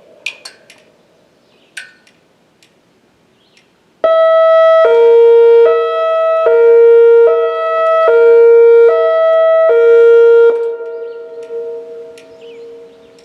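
Whelen WPS 2802 electronic outdoor warning siren sounding its Hi-Lo tone: after a few seconds of near quiet with a few short high chirps, it starts suddenly and alternates between a high and a low note, each held under a second. It stops abruptly about ten and a half seconds in, and the tone lingers and fades away.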